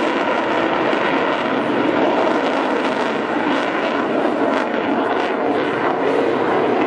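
Twin Eurojet EJ200 turbofans of a Eurofighter Typhoon at high power with afterburner lit: a steady, loud jet roar that starts to crackle about three seconds in.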